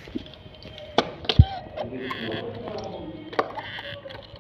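Tile-levelling pliers snapping green plastic wedges into levelling clips between porcelain floor tiles: a few sharp clicks and knocks. The loudest, with a dull thud, comes about a second and a half in, and another follows near the end.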